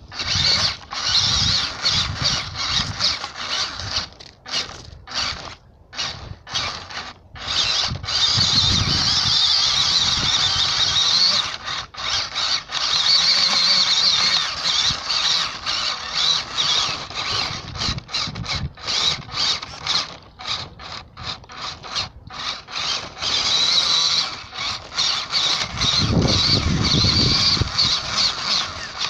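Off-road RC car's motor and gears whining, starting and stopping repeatedly in bursts as the throttle is worked. A low rumble comes in near the end.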